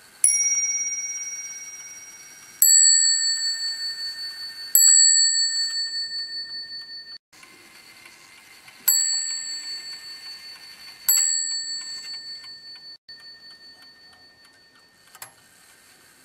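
Roman striking table clock sounding its two bells: one stroke on the higher bell, then two strokes on the lower bell, which in Knibb's Roman code reads IX. After a sudden break come two more strokes on the lower bell, which reads X. Each stroke rings on and fades slowly until it is cut off.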